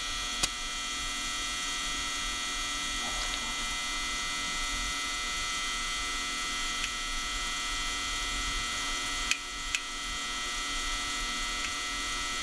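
Steady electrical hum made of many fixed tones, with a few faint clicks near the start and again in the last few seconds.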